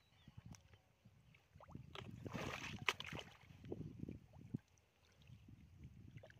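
Hands sloshing and squelching through shallow mud and water, feeling for fish, in irregular soft splashes. A louder splashy stretch comes about two seconds in, with one sharp click near three seconds.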